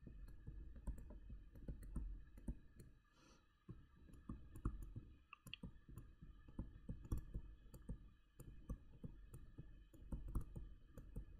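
Faint, irregular clicks and taps of a stylus pen on a touchscreen while handwriting.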